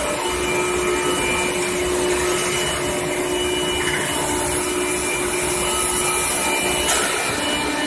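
Induction furnace running: a steady noisy drone with several fixed whining tones over it.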